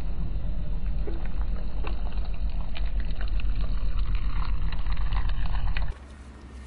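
A car tyre rolling slowly over asphalt and a squashed jelly dessert, over a steady low rumble of wind on the microphone, with small scattered crackles of grit under the tread. About six seconds in, the sound cuts off abruptly to a much quieter background.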